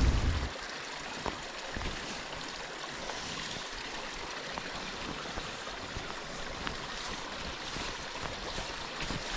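Creek water running steadily, with a few faint ticks.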